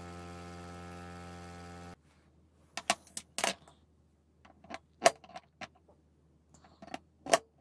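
Bench grinder running steadily while a screwdriver bit is ground on its wheel; the sound cuts off suddenly about two seconds in. Then a series of sharp metallic clicks and clinks follows as a steel washer and a small bit are handled on a wooden tabletop, the loudest about five seconds in and near the end.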